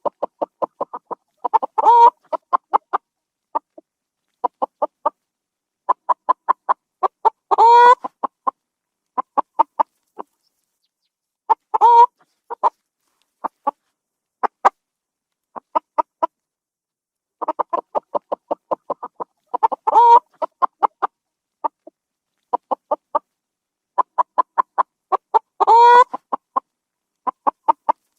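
Chicken cackling: runs of quick, short clucks that build to a louder, drawn-out squawk, repeated about five times.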